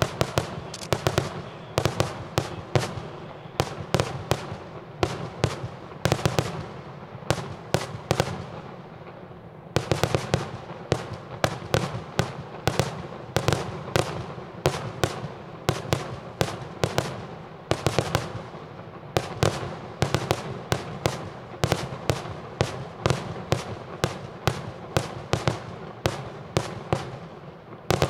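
Maltese daytime fireworks barrage (kaxxa tal-ħruġ) going off: a continuous rapid string of sharp firework bangs, several a second, over a steady crackle.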